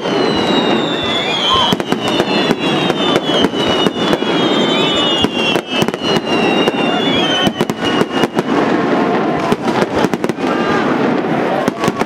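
Aerial fireworks display: a dense run of bangs and crackles from shells bursting overhead, with several whistles sliding slowly down in pitch through the first two-thirds.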